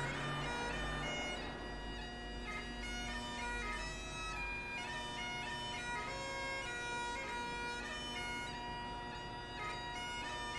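Bagpipes playing a tune over steady, unchanging drones.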